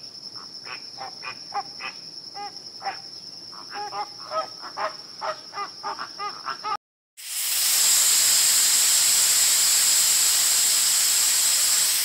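Flamingos calling: a rapid run of short nasal honks over a steady high tone. The calls cut off about seven seconds in, then a snake hisses loudly and evenly for about five seconds. The hiss is the loudest sound.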